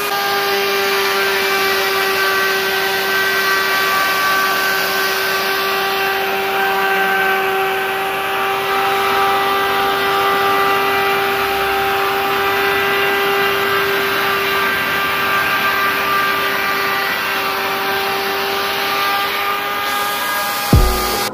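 Electric plunge router running at a steady high speed, a constant whine over a dense hiss. It cuts off suddenly near the end with a short knock.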